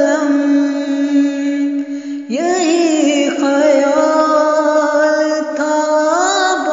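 Noha recitation: a solo voice sings long, drawn-out notes with no words, part of a lament. About two seconds in, one held note ends and a new one begins with a swoop up in pitch, then is held steady.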